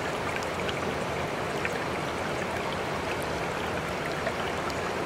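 Steady running-water ambience like a flowing stream, with scattered faint ticks through it. This is the masking track of a subliminal recording, laid over the affirmations.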